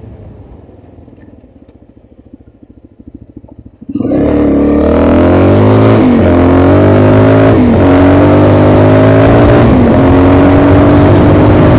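Motorcycle engine coming in loud about four seconds in and accelerating, its pitch climbing and dropping back at three gear changes, then running steadily.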